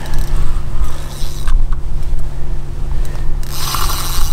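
Korum KXi 80 freespin reel and rod working while a hooked barbel is played: a loud, continuous mechanical grinding over heavy low rumble. A brighter, higher rasp comes in near the end.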